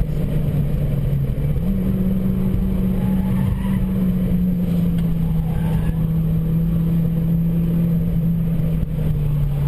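Opel Coupe Turbo's engine running hard under load, heard from inside the cabin as a steady, loud drone. Its pitch steps up sharply about a second and a half in, then eases slightly lower.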